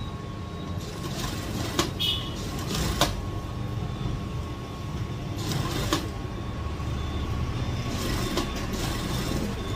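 Industrial sewing machine running in short spurts as it stitches a curved seam, with a steady motor hum and a few sharp clicks.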